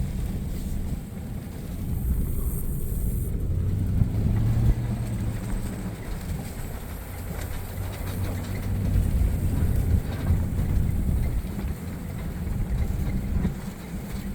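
A vehicle driving along with its engine running, a steady low rumble and hum that swells and eases a little.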